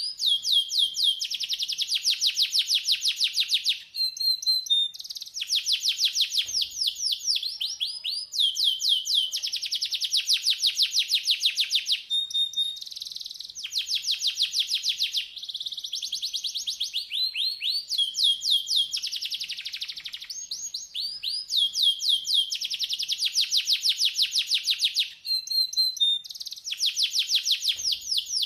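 Domestic canary singing: long phrases of very fast repeated, downward-sweeping notes, each phrase a few seconds long, with brief pauses between them.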